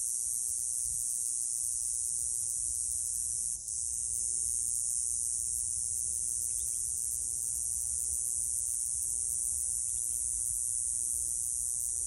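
Cicadas singing in a steady, unbroken high-pitched drone, with a brief dip about three and a half seconds in.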